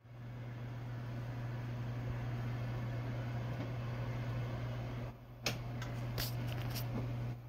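Household oven running with a steady low hum. About five seconds in come several sharp clicks and knocks as the oven door is shut.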